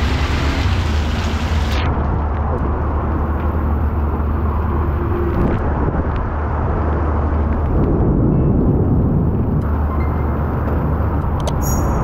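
Heavy rain pouring onto a street and awning: a steady loud hiss over a deep low rumble. The sound turns duller about two seconds in and swells louder for a moment around eight seconds in.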